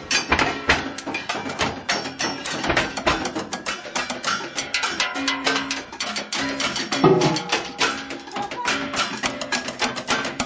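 Fast, dense drumming on kitchen objects: many sharp strikes a second in a driving rhythm, with short pitched notes mixed in among the hits.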